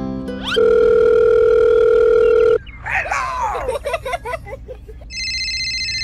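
Telephone sound effects: a steady dial tone for about two seconds, a quick jumble of chirping electronic tones, and from about five seconds in a phone ringing. Soft background music ends just before the dial tone starts.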